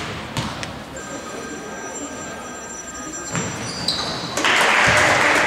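A basketball bounces twice on the hardwood court as a player readies a free throw. Around four and a half seconds in, after the shot reaches the rim, loud shouting and cheering rise and echo in the hall.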